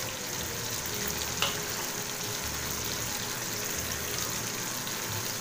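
Ground spices and cumin paste frying in hot oil with chopped tomato, a steady sizzle, with one light tap about a second and a half in.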